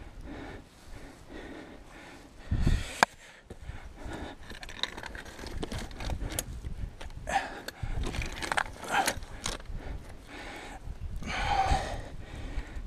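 A climber breathing hard while scrambling up steep rock, with scrapes and knocks of hands and boots on the stone and a sharp click about three seconds in.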